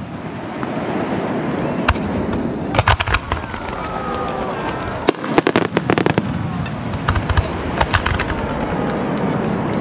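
Fireworks display: shells and rapid-fire starmine launches going off as clusters of sharp bangs and crackles, with the heaviest runs about three seconds in, from five to six seconds, and around seven to eight seconds, over a steady background noise.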